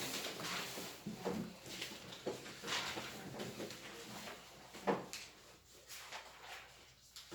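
Scattered small knocks, clicks and rustles of things being handled and moved about.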